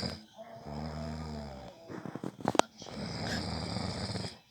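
A sleeping man snoring: a low, buzzing snore, then a rattling snort that ends in a sharp click about two and a half seconds in, then a long rasping breath.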